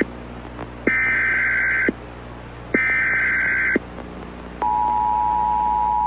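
Emergency Alert System broadcast tones: two one-second bursts of the warbling digital SAME header data, about a second apart. About four and a half seconds in, the steady two-note EAS attention signal starts, the tone that opens an alert message.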